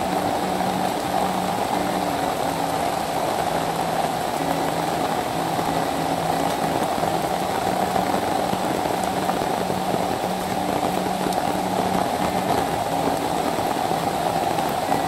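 Heavy rain falling on forest, blending with a rain-swollen stream rushing below into one steady, even rush of water.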